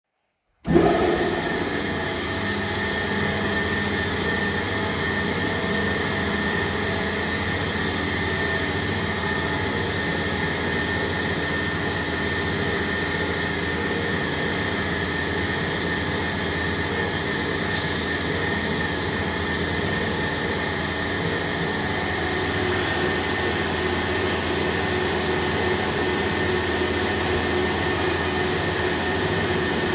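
Cutting machine running with a steady mechanical drone and hum, starting abruptly just after the start.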